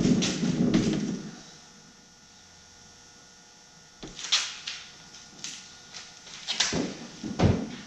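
Sharp knocks and clunks, several in the second half, from a 1979 VW bus sliding door being worked onto its track and sliders. A low rustle of handling comes at the start, and a faint steady hum runs beneath.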